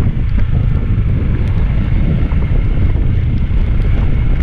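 Steady wind rush over the microphone of a motorcycle being ridden along at a constant speed, with the bike's engine running underneath.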